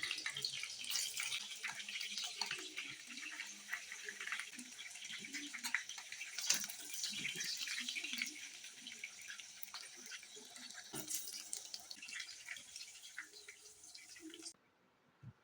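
Hot oil sizzling and crackling as a chicken chapli patty fries, with many small pops; it cuts off abruptly near the end.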